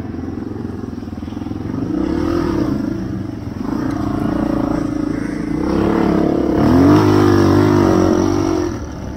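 Honda XR250's single-cylinder four-stroke engine running under load, its revs rising and falling with the throttle, climbing to the loudest point about seven seconds in and easing off near the end.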